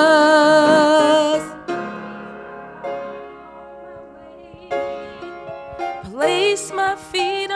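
Gospel solo singing: a woman's voice holds a long, wavering note on "Jesus" that ends about a second and a half in. A much quieter stretch of held accompaniment chords follows. Near the end a voice slides upward into the next sung phrase.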